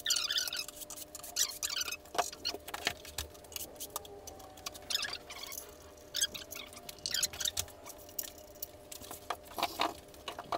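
Packaging rustling and crinkling in short, irregular bursts as it is handled, over a faint steady hum.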